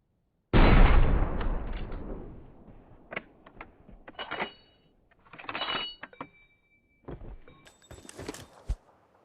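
A sudden loud crash about half a second in that dies away over about two seconds, followed by scattered clinks and clattering, some with a short ringing tone.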